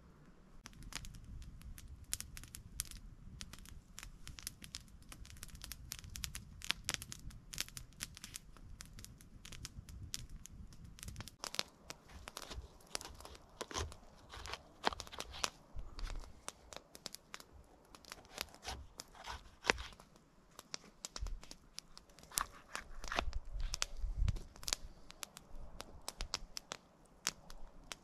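A knife slicing a green bell pepper on a small plastic cutting board: a long run of irregular crisp crunching cuts and taps, thicker and louder in the second half.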